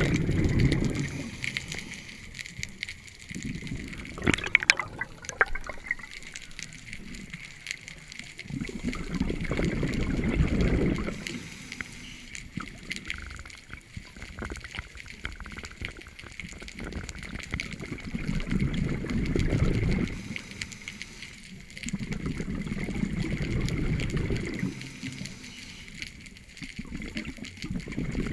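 A scuba diver breathing through a regulator underwater, with several long exhalations of rushing bubbles, each lasting two or three seconds, and quieter gaps between them. A short run of clicks comes about four to five seconds in.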